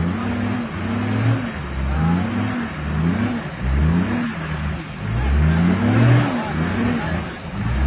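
A 4x4's engine revving in short repeated bursts, rising and falling in pitch about once a second, as it crawls over boulders under load.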